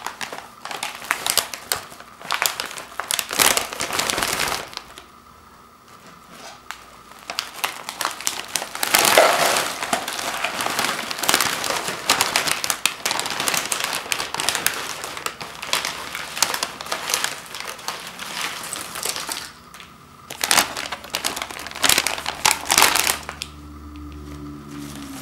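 A foil-lined plastic potato chip bag crinkling and crackling as it is handled, then potato chips tumbling out of the bag into a bowl with a long, loud rustling crackle, broken by a few short bursts near the end.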